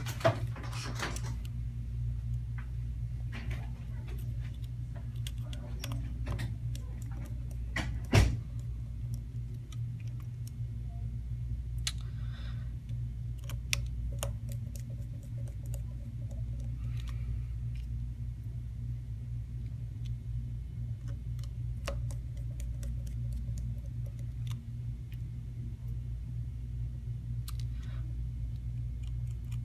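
Small Phillips screwdriver and tiny screws clicking and tapping against the metal shield plate of an iPod Touch as the screws are put back in. There is one louder click about eight seconds in, all over a steady low hum.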